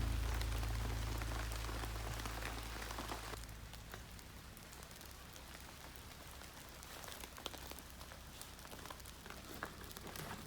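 Rain falling steadily, with scattered drops ticking.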